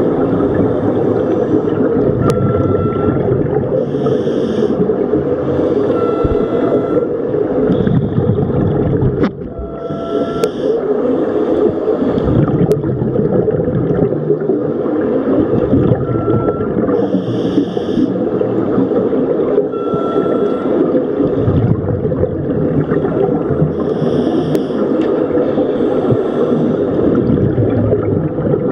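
Underwater sound from scuba divers: a steady low rumble, with a regulator breathing every few seconds, a hiss on each inhalation and a bubbling exhalation.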